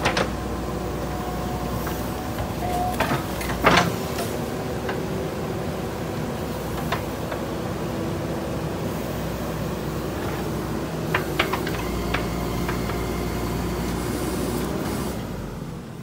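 JCB 3DX backhoe loader's diesel engine running steadily while the backhoe arm works, with a few sharp knocks, the loudest about four seconds in. The engine sound drops off near the end.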